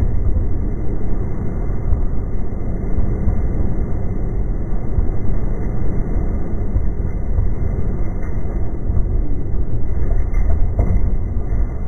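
Steady low rumble of a Tsukuba Express train running, heard from inside the carriage.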